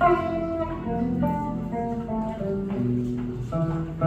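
Guitar being plucked, picking out a melody one note at a time over low bass notes, each note changing after a fraction of a second.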